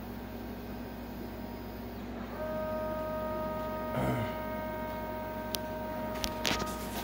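Stepper motors of a Lowrider 3 CNC driving the gantry across the table: a low hum at first, then from about two seconds in a steady, even-pitched whine, with a few light clicks near the end.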